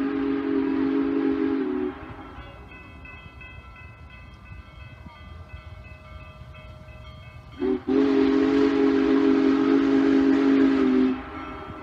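Union Pacific Big Boy 4014's chime steam whistle blowing a chord of several tones: a long blast that cuts off about two seconds in, then after a pause a short toot and a long blast of about three seconds.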